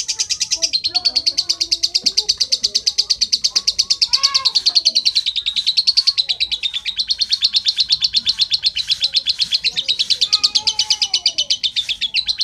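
Lovebird chirping in a fast, unbroken, even run of high chirps, many a second, with no pause.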